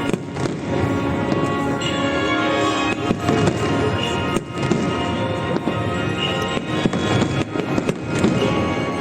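Fireworks bursting with repeated sharp bangs and crackle over loud music played for the fireworks show.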